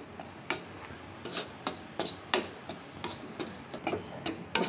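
A spatula scraping and stirring wheat flour roasting in ghee around a non-stick kadai, in quick repeated strokes of about three a second.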